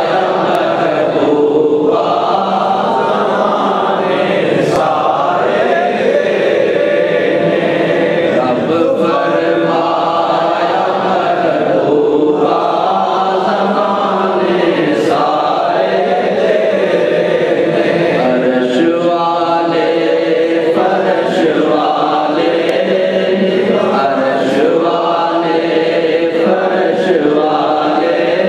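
A man's voice chanting a melodic religious recitation through a microphone and PA, in long sung phrases with short breaths between them.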